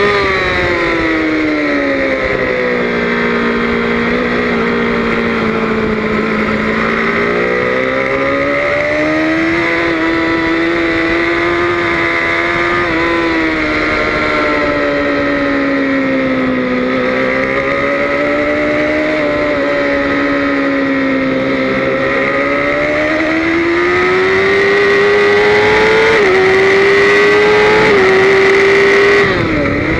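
BMW S1000RR's inline-four engine at racing speed, heard from on the bike. Its pitch falls as the bike slows over the first several seconds, then rises and eases through the bends. Near the end it climbs with two quick upshifts, then drops sharply as the throttle is shut.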